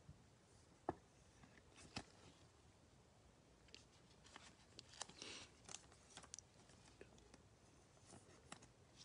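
Faint clicks and rustles of trading cards and their clear plastic holders being handled with gloved hands. A few sharp ticks stand out, the loudest about a second in, and there is a short rustle around five seconds in.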